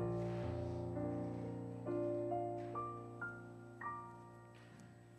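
Soft keyboard music: a held chord, then a few single notes stepping upward one after another, the sound fading away over the last second or so.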